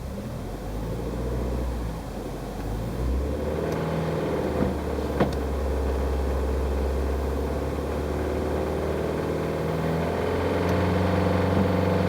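Subaru Pleo RM's EN07Z four-cylinder engine revved in Park and held at raised revs, stepping up about three seconds in and again near the end. From around 2500 rpm it gives the rattling 'garagara' noise whose cause the owner is trying to find.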